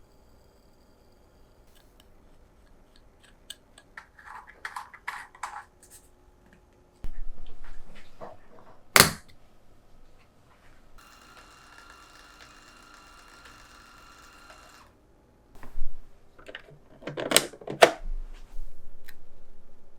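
Objects being handled on a hard surface: light clicks and taps, a sharp knock, then a steady whir with a buzzing pitch that lasts about four seconds, followed by a few louder knocks.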